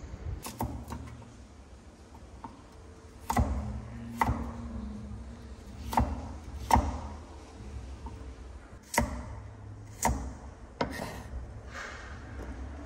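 Knife chopping on a cutting board: single sharp knocks at irregular intervals, a second or two apart.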